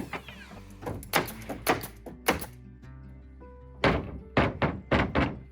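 About nine sharp knocks at uneven intervals, coming faster near the end, over background music: nails being driven into plywood roof sheathing.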